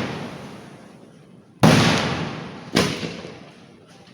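Two loud firework blasts about a second apart, each followed by a long fading rumble and echo. The tail of an earlier blast is still dying away at the start.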